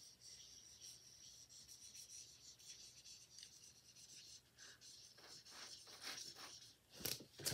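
Faint marker-pen strokes writing on a sheet, a run of short scratchy rubs that grows louder near the end.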